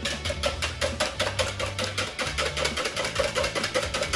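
Wire whisk beating eggs in a plastic bowl: a fast, regular clatter of about seven strokes a second.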